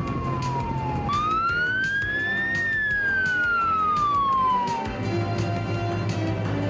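Police car siren wailing, its pitch sliding down, then slowly up and back down, and stopping about five seconds in. Background music with a steady beat plays underneath.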